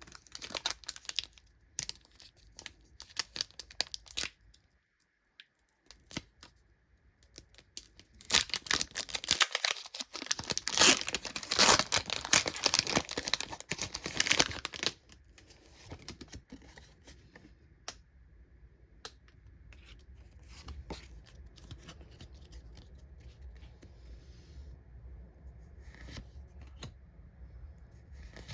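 Foil wrapper of a Pokémon booster pack being torn open and crinkled: short crackly bursts at first, then a dense, loud stretch of tearing and crinkling in the middle, followed by quieter handling with scattered light clicks.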